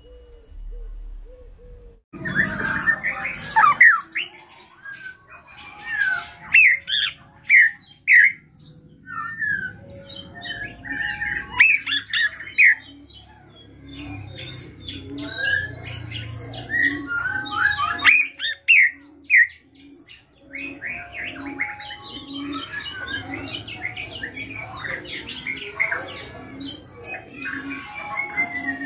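Caged drongo (srigunting krantil) singing a rapid, varied song of whistles, squawks and chirps, in bursts with short pauses, beginning about two seconds in. This is the kind of song keepers call full isian: packed with mimicked calls.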